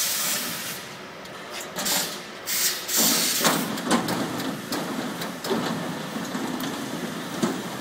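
Spiked-chain log infeed conveyor of a plywood veneer line running, with irregular clanks and rattles over a steady mechanical running sound. The clatter is busiest a couple of seconds in.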